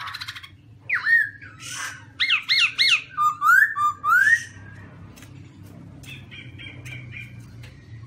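Black-throated laughingthrush (Garrulax chinensis) singing loudly. It gives a burst of ringing whistled phrases with quick rising and falling slurs through the first half, then a quieter run of short chattering notes near the end.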